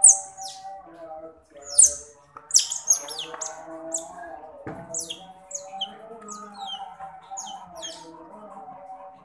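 Baby otter chirping, a rapid run of short, high-pitched squeaks that each slide downward, while it feeds from a milk bottle.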